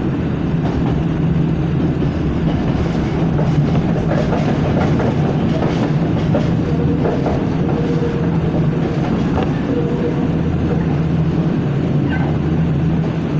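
Nankai Koya Line train running, heard from inside the passenger car: a steady low hum and rumble, with the wheels clicking over rail joints and points, mostly in the first half.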